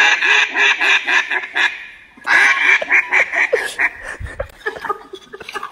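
Duck call blown in two runs of rapid quacks, one after the other, heard over a video call through laptop speakers.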